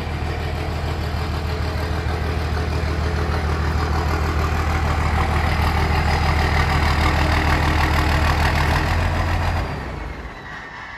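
A vehicle engine running steadily, growing a little louder, then dropping away sharply near the end, leaving a falling whine.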